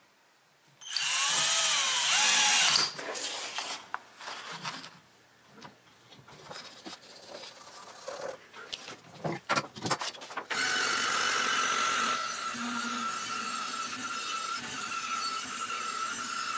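A power drill drives a screw through a glued joint in pine construction lumber for about two seconds, its pitch swinging up and down. Scattered knocks and handling sounds follow. From about ten seconds in, a band saw runs steadily as it cuts through the pine ring.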